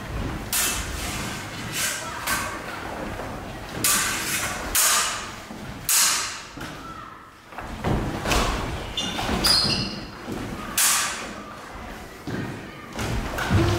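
Sabre bout: fencers' feet stamping on a wooden floor and blades striking, about ten sudden thumps and clashes spread irregularly through the seconds, echoing in a large hall, with a brief metallic ring a little past the middle.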